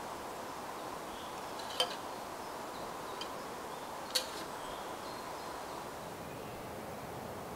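Two sharp metallic clinks of camp cookware, a metal pot and cup being handled and set down, the second about halfway through, over a steady hiss of wind and forest ambience.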